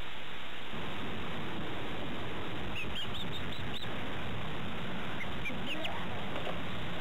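Young birds peeping: a quick run of about six short, high peeps near the middle, and a few more near the end, over a steady hiss.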